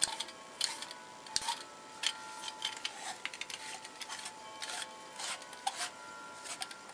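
Chrome sink-drain pipe pieces being screwed together by hand over Teflon-taped threads: irregular short scrapes and rubs of fingers and metal threads turning against each other.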